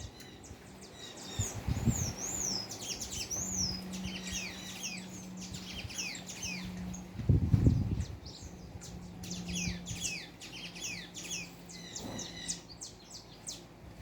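A mass of high, rapid chirps and squeaks from many small animals calling at once, overlapping throughout. A low thump comes about two seconds in and a louder one about seven and a half seconds in, over a faint steady low hum.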